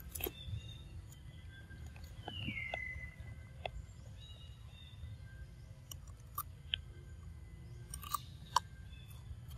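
A pig-tailed macaque biting and chewing raw cucumber, with sharp, crisp crunches at irregular intervals, the loudest near the end. A short whistle-like call falling in pitch sounds about two seconds in.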